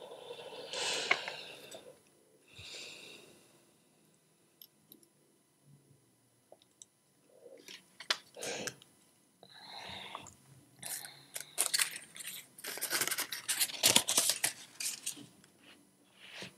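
Paper being handled: short rustles, a few light clicks, then a longer run of crinkling and crackling in the last few seconds.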